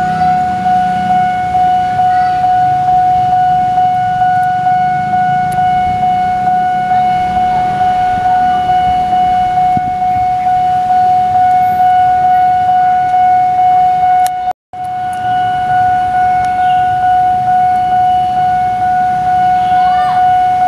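Railway level-crossing warning alarm sounding: one steady high tone with a slight pulse about twice a second, breaking off for an instant about two-thirds of the way through.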